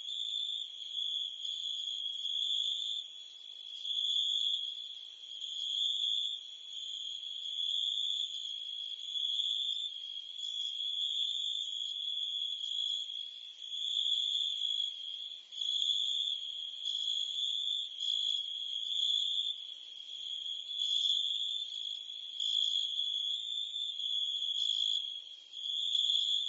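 A chorus of crickets and cicadas: a continuous high-pitched insect trill on one pitch, swelling and fading in loudness every couple of seconds.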